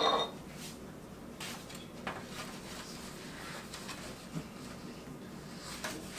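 A wooden pizza peel knocking and scraping against a metal pizza peel as a topped pizza is eased from one onto the other: a sharper knock at the start, then light taps and scrapes.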